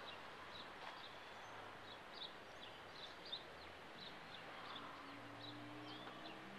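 Faint outdoor background with small birds chirping over and over. From about five seconds in, a low drawn-out tone sets in and slowly rises in pitch.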